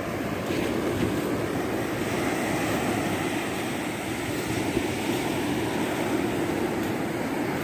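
Surf breaking and washing up on a sandy shore, a steady rushing noise.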